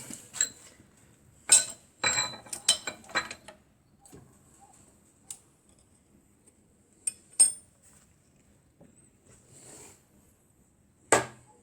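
Small metal parts clinking and knocking as they are handled: a quick cluster of clinks with a short ring from about one and a half to three and a half seconds in, two more around seven seconds, and a single knock near the end.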